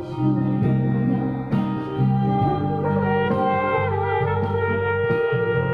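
Live band music: a woman singing through a microphone with a trumpet playing alongside, over a steady bass line.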